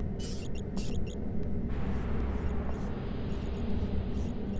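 Sound-designed machine ambience: a steady low rumble with quick high clicks and ticks scattered through it, and a hiss that comes in about two seconds in.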